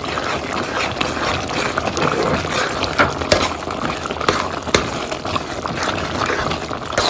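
Prawns, onions and tomato puree sizzling and bubbling in a pan while being stirred, with a few sharp clicks of the stirring utensil against the pan.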